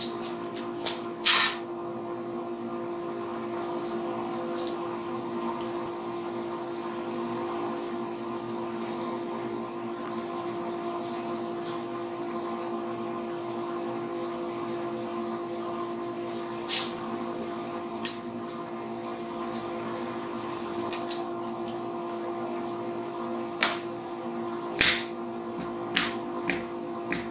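A workshop machine's motor hums steadily at one even pitch, with scattered sharp clicks and knocks, several of them close together in the last few seconds.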